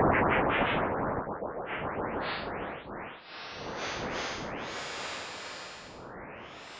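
Electro-acoustic computer music: a dense, loud cluster of rapid synthetic pulses that thins out over the first three seconds, then a few noisy synthesizer sweeps that climb in pitch, growing quieter toward the end.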